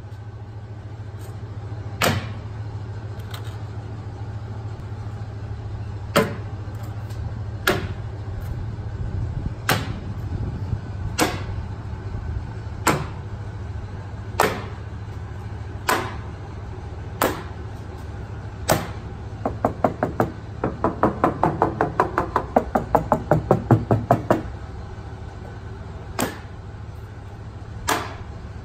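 A small magnet clicking onto the steel body panels of a 1957 Chevrolet Bel Air wagon, one sharp click every second or two, a magnet test for body filler. About two-thirds of the way through comes a fast run of taps, about five a second. A steady low hum lies under it.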